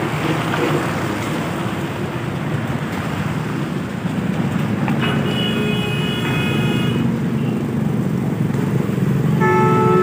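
Steady low engine rumble of road traffic and site machinery. A vehicle horn sounds for about two seconds around the middle, and again near the end.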